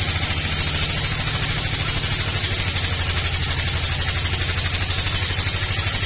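A sawmill band saw cutting a slab off a neem log: a steady low machine drone with a fast, even throb, under a constant hiss of the blade through the wood.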